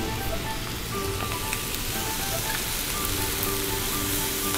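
Shredded cabbage frying in hot olive oil in a pan: a steady sizzle, with a few light scrapes of a wooden spatula turning it.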